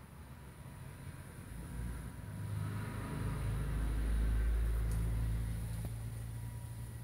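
A low rumble that swells to its loudest about halfway through and then fades again.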